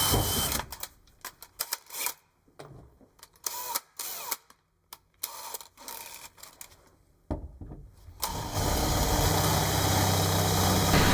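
A power tool's motor runs steadily and stops about half a second in. Several seconds of scattered light clicks and knocks follow. The motor starts running again at about eight seconds.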